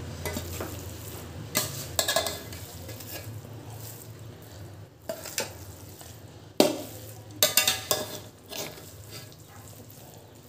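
A metal spatula stirring and turning cooked biryani in a metal pot: soft scraping through the rice with scattered sharper scrapes and knocks against the pot, over a low steady hum. This is the final mixing of the biryani, with fresh mint, after its dum steaming with the stove off.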